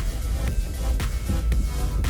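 Background music: an electronic track with a steady beat of about two strikes a second over heavy bass.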